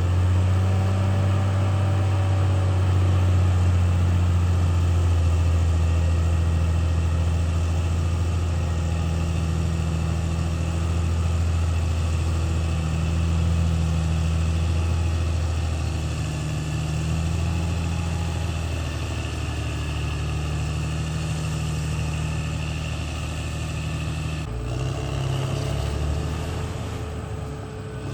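CAT D6R XL bulldozer's diesel engine running steadily with a deep, even drone. The sound shifts abruptly about three-quarters of the way through.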